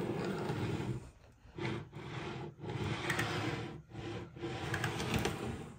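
A model railway wagon pushed along OO gauge track with a pen held against it, its wheels rolling on the rails and the pen rubbing and scraping across the baseboard, in about four strokes of a second or so each with short pauses between.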